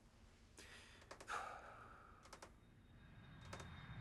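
Near silence: a soft sigh about a second in, a few faint clicks and paper rustles, and low background noise slowly swelling near the end.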